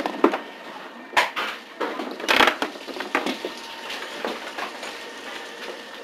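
A string of irregular knocks, scrapes and crunches from burnt debris and objects being moved and stepped on. The loudest and longest crunch comes about two and a half seconds in.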